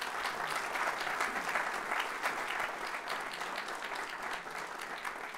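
Audience applauding, many hands clapping in a dense patter that eases off near the end.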